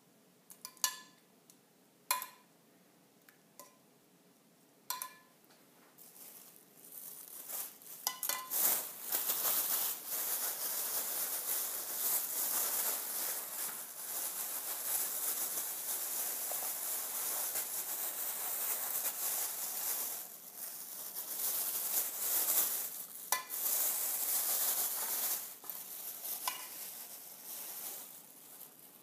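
A few sharp knocks with a short ring, then a long stretch of rustling as chicken is shaken in a plastic bag of panko breadcrumbs, dying away near the end.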